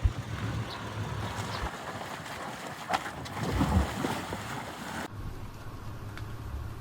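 Rushing water with wind buffeting the microphone, changing abruptly about five seconds in.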